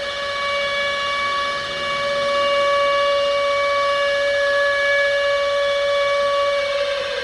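Civil defense siren holding one steady wailing pitch, then starting to wind down, falling in pitch, near the end.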